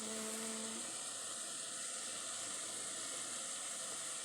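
Chopped onions, green peppers, courgette and tomatoes sizzling steadily in oil in a pan over medium heat. A brief faint tone sounds in the first second.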